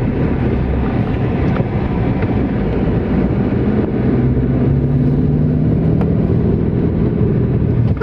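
Car driving on a mountain road, heard from inside: a steady rumble of road and engine noise, with an engine hum coming in steadily about halfway through.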